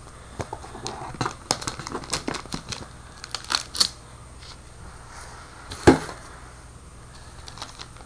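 Plastic shrink wrap crinkling and clicking as a shrink-wrapped Apple wireless keyboard is handled, with one louder knock about six seconds in.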